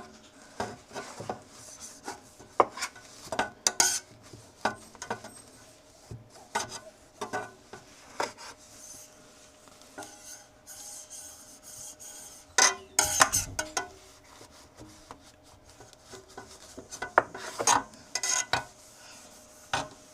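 Scrubbing and scraping inside a freeze dryer's chamber to clear food residue off the back wall, in irregular rubbing strokes. Louder spells of quick strokes come around four, thirteen and eighteen seconds in.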